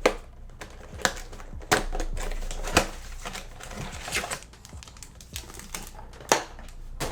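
Sports card box and its plastic wrapping being opened and handled by hand: a string of sharp cardboard clicks and snaps with a short rustle of packaging.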